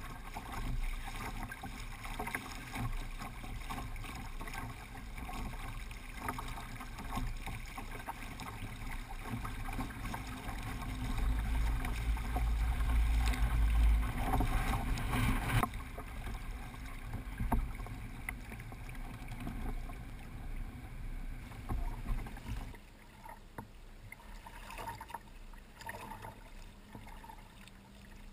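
Water rushing and splashing along the hull of a Hobie Adventure Island sailing kayak under sail, with wind buffeting the microphone, heaviest about halfway through. Later it drops to quieter water lapping with small splashes.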